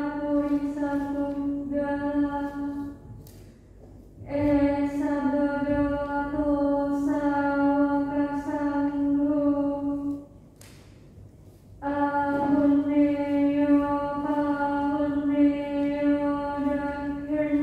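A woman chanting Buddhist paritta on a nearly level pitch, in long unbroken phrases with two short pauses for breath, about three and ten seconds in.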